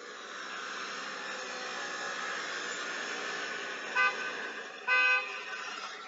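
Car sound effect: a car engine running steadily, with two horn beeps about four and five seconds in, the second a little longer, then fading out near the end.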